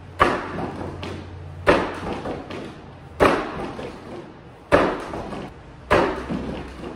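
Five hard elbow strikes (empi) on a home-built wooden makiwara striking post, one about every second and a half, each a heavy thud with a short ring after it. The post is cold and hard, like hitting a brick.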